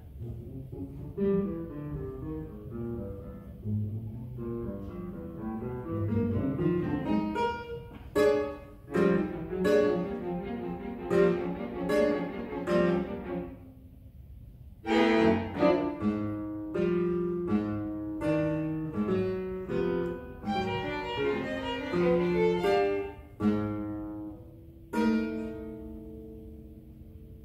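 Classical guitar and string quartet (two violins, viola, cello) playing modern chamber music: a run of sharp, clipped attacks in the middle, a brief lull, then more short bowed and plucked notes.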